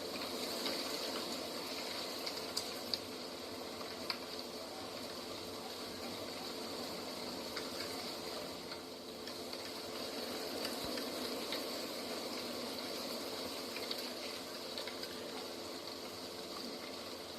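Steady rushing outdoor ambience, water-like or wind-like, with a few small sharp clicks scattered through it.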